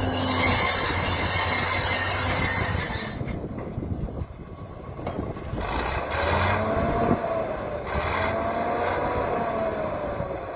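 Excavator working, with metallic squealing for the first three seconds or so, then slow, low groaning tones that rise and fall.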